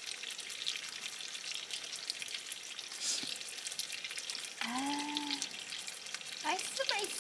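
Meat and sausages sizzling in a grill pan, a steady hiss with scattered crackles and spits. Two short hums from a voice come about two-thirds through and near the end.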